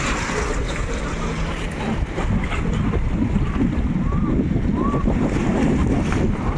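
Wind buffeting the microphone over sea surf washing on a pebble beach, with a few faint distant voices.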